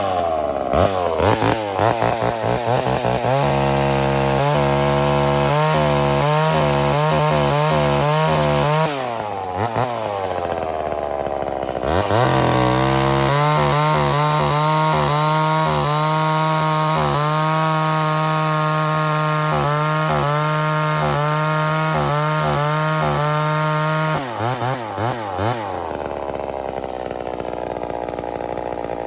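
Homelite Super XL-923 82cc two-stroke chainsaw cutting wood. The engine holds a steady, lower pitch under load and rises in pitch when eased off about nine seconds in. It settles back to the loaded pitch for a second long cut until about 24 seconds in, then runs lighter and higher.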